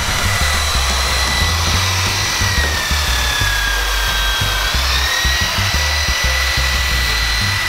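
Electric hand planer running as it shaves the edge of a plywood bulkhead: a steady high whine over cutting noise, its pitch sagging about four seconds in as the blade bites harder, then coming back up a second later.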